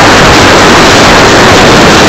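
Strong wind buffeting the microphone: a loud, continuous rushing roar with an irregular low rumble, the recording driven close to full scale.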